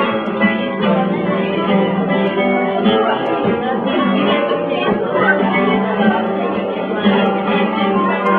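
Flamenco guitar playing without a break, a steady run of plucked notes and chords.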